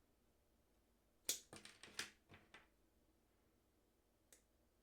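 Faint clicks of wire-stripping pliers being worked on a wire: a quick cluster of about six about a second in, and one more near the end.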